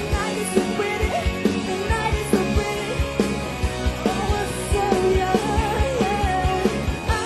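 Live rock band music: a woman singing lead over drums and guitars with a steady beat.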